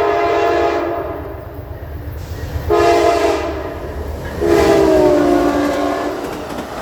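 Amtrak P42 diesel locomotive sounding its multi-chime air horn in three blasts, a long one, a short one and a longer one whose pitch drops as the locomotive passes, over the low rumble of the approaching train.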